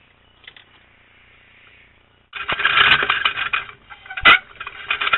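Quick, irregular clicking and rattling of a plastic hamster cage. It starts about two seconds in, with one sharp louder click about four seconds in.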